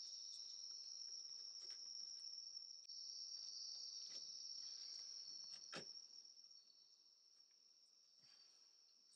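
Faint, steady high-pitched insect trill that fades after about six seconds, with a few soft clicks of a mud flap's strap and buckle being handled.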